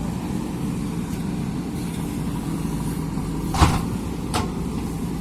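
JCB 3DX backhoe loader's diesel engine running steadily, with two sharp metallic clanks, the first louder, a little past halfway and again under a second later.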